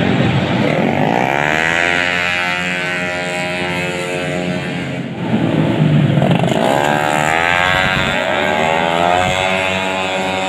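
Tuned 131cc automatic racing scooters running at high revs, the engine pitch climbing as the bikes accelerate, once about a second in and again about six seconds in.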